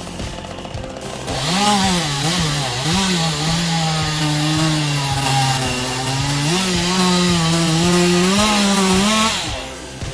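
Chainsaw cutting wood. It revs up a little over a second in and its pitch wavers a few times. It then holds a steady, lower pitch under load, rises again about six and a half seconds in, and dies away about nine seconds in.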